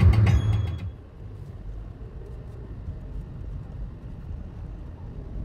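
Car cabin noise while driving: a steady low rumble of engine and road noise, louder for the first second and then dropping to a quieter rumble about a second in.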